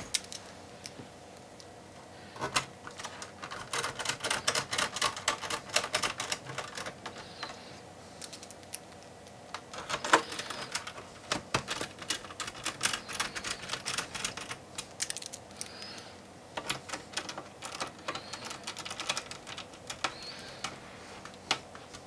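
Small Phillips screwdriver driving screws into the metal mainboard shield of an all-in-one PC: three spells of rapid, light metallic clicking and scraping as the screws are turned home.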